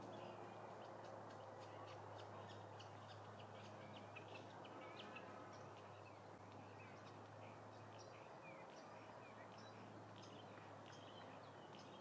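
Faint chirping of small songbirds: many short, high calls in quick succession, over a steady low hum.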